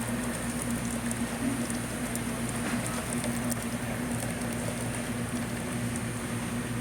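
Self-serve coffee machine dispensing a drink into a cup: a steady patter of liquid over the hum of the machine.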